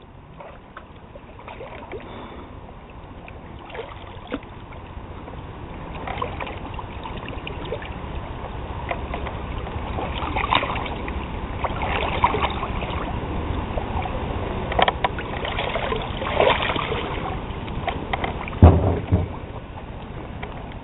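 River water sloshing and splashing around a person wading waist-deep while walking a kayak past a log jam. The splashing grows louder about a third of the way in, with several sharper splashes and a heavy thump near the end.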